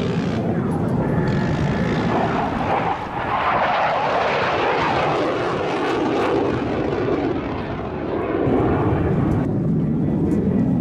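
Mitsubishi F-2 fighter's single F110 turbofan running on afterburner as the jet pulls up steeply. The roar sweeps up and then falls in pitch midway through as the aircraft passes.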